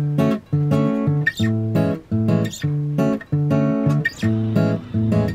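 Background music: a guitar strumming chords in a steady rhythm, about two strums a second.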